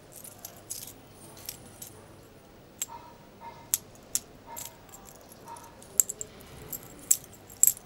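Metal jingling and clinking: a string of sharp, irregular clinks, several of them with a short ringing tone.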